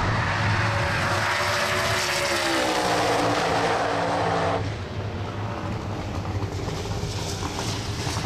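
Outlaw radial drag car's engine running loudly, its pitch dipping and rising, then cutting off abruptly about halfway through. A lower, rougher rumble follows with scattered sharp exhaust pops.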